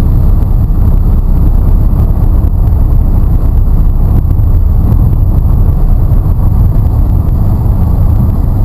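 Small pickup truck driving along a road after a tune-up, heard from inside the cab: a steady, loud low engine and road rumble.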